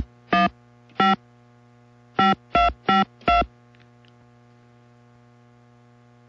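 Touch-tone telephone keypad dialing a number: seven short beeps, unevenly spaced, over the first three and a half seconds, then only the low hum of the open phone line.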